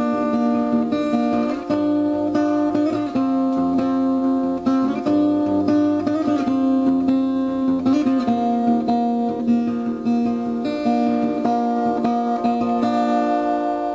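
Background music led by acoustic guitar, with sustained notes changing every second or so, beginning to fade out at the very end.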